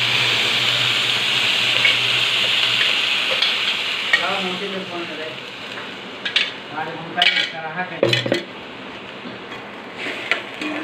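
Onion, garlic and green-chilli paste sizzling loudly in hot oil in a kadai, the sizzle dying down after about four seconds. In the second half, a metal spoon and the mixer jar scrape and clink against the pan as the paste is stirred.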